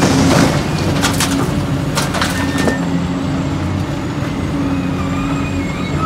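Heavy excavator's diesel engine running steadily, with a burst of cracking, crunching impacts of rock and dirt in the first three seconds or so.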